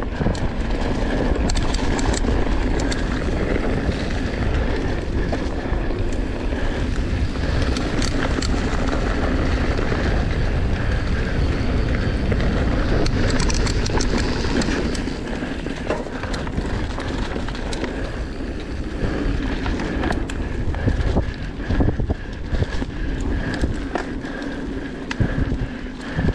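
Mountain bike descending a leaf-covered dirt trail at speed: wind rushing over the handlebar-mounted microphone and tyres rolling over leaves and dirt, with frequent sharp knocks and rattles from the bike on the rough ground. A faint steady whine runs underneath.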